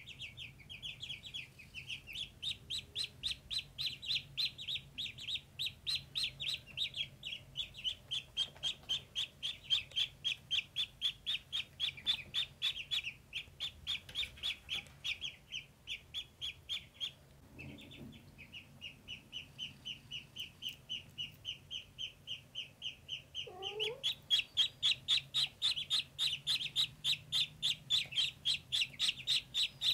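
Ducklings peeping, a rapid string of short high-pitched peeps at several a second. The peeping breaks off briefly a little past halfway, then picks up and grows louder near the end.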